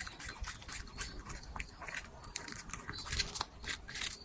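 Quiet, irregular scratching and clicking, several small sharp sounds a second with no steady rhythm.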